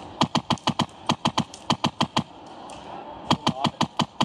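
Airsoft gun firing in rapid strings of sharp cracks, about seven shots a second, with a pause of about a second a little past halfway.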